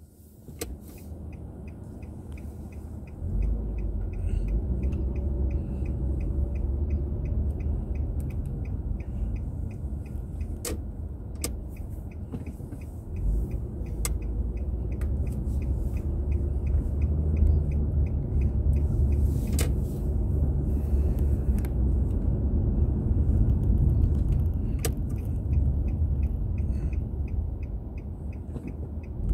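Car driving, heard from inside through a dashboard drive recorder: a low engine and road rumble that grows louder about three seconds in as the car gets moving. A light, regular ticking runs over it, along with a few sharp clicks.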